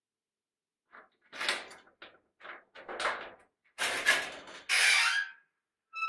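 A squeaky basement door being opened and closed: a series of short creaks from the hinges, with a sharp knock about four seconds in and a longer, louder creak near the end.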